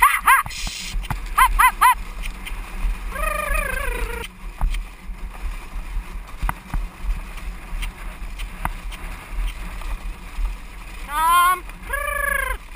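A pony-drawn carriage running over grass with a steady low rumble, while the driver urges the pony on with quick groups of short high calls at the start, about a second and a half in and again near the end, and one longer falling call around three seconds in.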